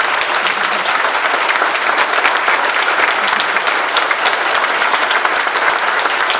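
Audience of many people applauding, a dense, steady patter of clapping hands.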